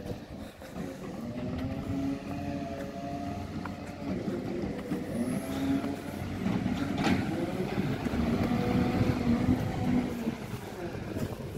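Garbage truck's diesel engine running as it drives off, its pitch rising and falling with the gears and getting louder in the second half. A single sharp knock about seven seconds in.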